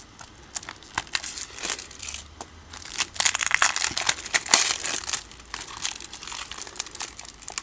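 Plastic shrink wrap crinkling and crackling as it is picked at and peeled off a Blu-ray case. It grows louder and busier about three seconds in.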